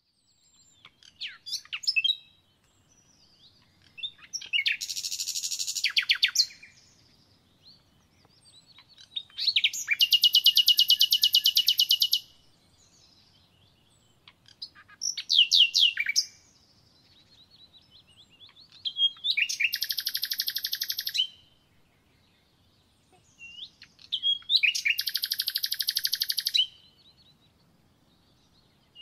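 A songbird singing in repeated phrases, each a few short chirps running into a fast, high trill of two to three seconds, about five phrases in all.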